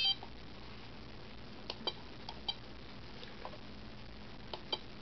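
Flysky i6X RC transmitter's button clicks and key-press beeps as its menu is stepped through: about four short, high beeps, each following a faint click of a button.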